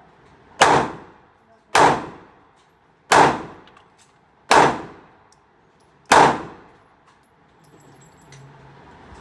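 Five shots from a small handgun, fired one at a time about a second to a second and a half apart, each with a short ringing echo.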